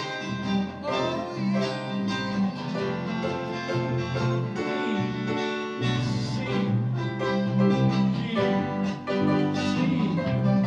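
A small band playing a song together: electric guitars and a keyboard over steady low bass notes.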